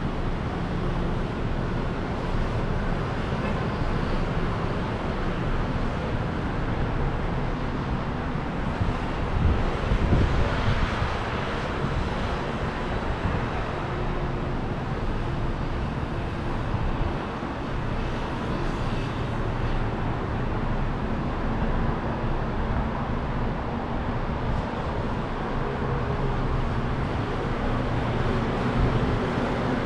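Street traffic: a steady rumble of engines and tyres, swelling as a louder vehicle passes about ten seconds in.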